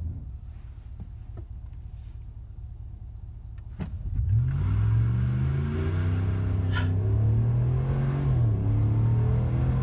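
2017 Ram pickup's 5.7-litre Hemi V8, heard from inside the cab, idling at a standstill, then launching at full throttle about four seconds in for a 0-60 run. The engine note climbs steeply, drops briefly at an upshift near the end, and climbs again.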